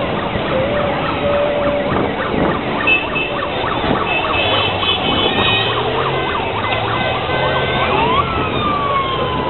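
Parade of Honda Gold Wing motorcycles riding past, with horns tooting and sirens wailing over a steady din of engines and traffic. Horns sound about three to five seconds in, and one siren rises sharply about eight seconds in, then slides slowly down.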